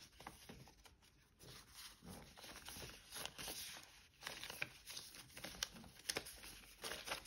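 Faint rustling of paper banknotes and a cash envelope being handled, with scattered light clicks and taps.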